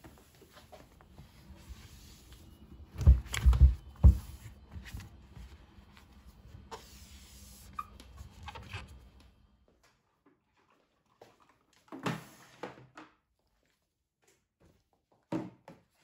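Household cleaning sounds at a vanity: a cloth wiping the top, with a cluster of loud knocks about three seconds in, then a few light knocks later, the last as a jar is set down on the top near the end.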